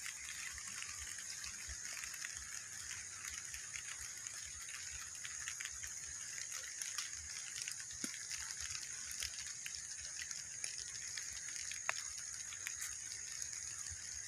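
Steady outdoor background noise: a continuous high-pitched hiss with scattered faint ticks and a few soft low thumps.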